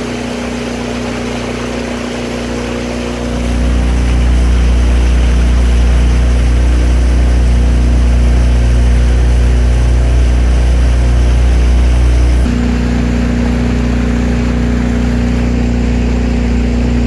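Motorboat engine running steadily, getting louder about three seconds in as it is opened up and easing back after about twelve seconds.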